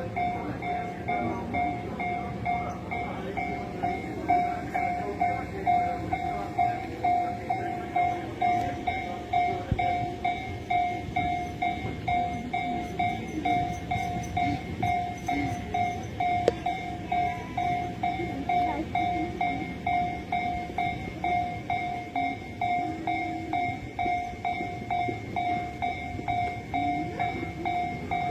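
Japanese railway level-crossing warning bell ringing in a steady, even ding-ding rhythm, with a train rumbling past over the rails underneath.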